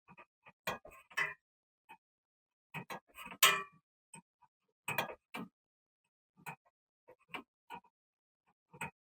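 Hand tools working on a car's rear stabilizer link, with scattered sharp metallic clicks and clinks, single or in pairs. A louder, longer rattle comes about three and a half seconds in. These are the sounds of loosening and removing the worn link.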